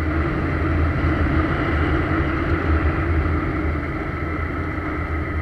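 Motorcycle engine running steadily as the bike rides along at an even speed.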